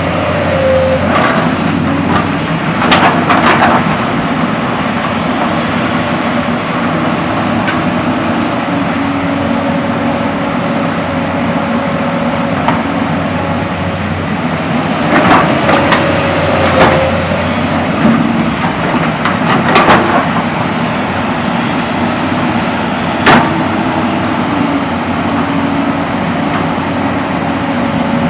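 JCB excavator's diesel engine running under load while it digs, its pitch shifting now and then, with several sharp knocks from the working machine, the sharpest about 23 seconds in.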